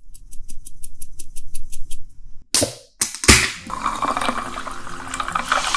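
A run of quick, even clicks, about six a second, then two sharp cracks. Sparkling water then pours over ice into a glass, splashing and fizzing, the fizz building toward the end.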